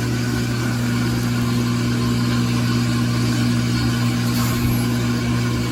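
LG top-load washer spinning its empty basket: a steady motor hum that holds one pitch. The basket moves too much in the spin, which the technician puts down to a tub balance ring whose fluid has hardened and to worn suspension rods, the probable cause of its going out of balance.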